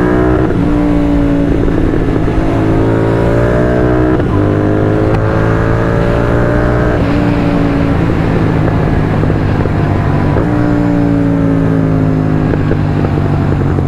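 Royal Enfield 650 parallel-twin engine running through Red Rooster Performance aftermarket exhausts, accelerating hard through the gears. The pitch climbs in pulls broken by upshifts about four, seven and ten seconds in, then falls away as the throttle closes, with exhaust crackles on the overrun near the end.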